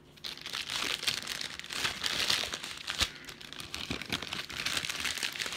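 Packaging crinkling and tearing as the printer's document pack, holding the manuals and setup disc, is torn open by hand, with one sharper crack about three seconds in.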